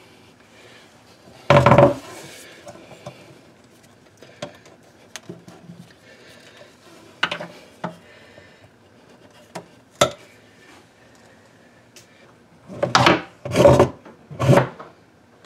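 Hands and a small metal tool working a coax cable free and pulling it back through a hole in a wooden desk panel: scattered clicks, knocks and rubbing on wood. There is a louder knock about a second and a half in, and three louder scraping knocks near the end.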